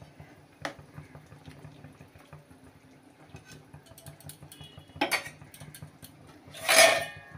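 Fish curry simmering quietly in an aluminium kadai, with a metal spatula scraping and tapping against the pan. There is a sharp tap under a second in, a clatter about five seconds in, and a louder ringing metal clatter near the end.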